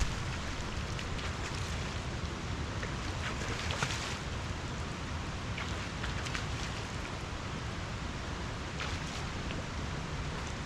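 Wind buffeting the microphone as a steady low rumble over an even outdoor rushing hiss, with a few faint rustles or clicks.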